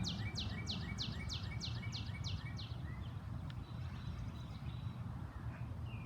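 A bird singing a fast, even run of high chirps, each sliding downward, about four a second, which stops nearly three seconds in. A steady low rumble underlies it throughout.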